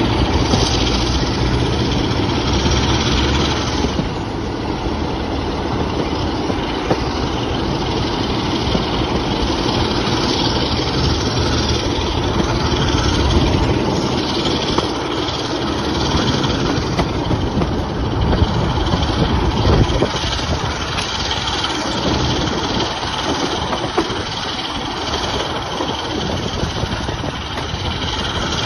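BR Class 45 'Peak' diesel locomotive hauling its train at speed, heard from an open carriage window: the engine working under power mixed with the run of the coaches on the rails. Wind buffets the microphone throughout.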